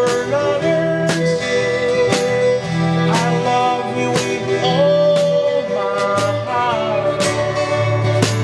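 A song played by a band, with guitar and a sustained melody line over a steady beat.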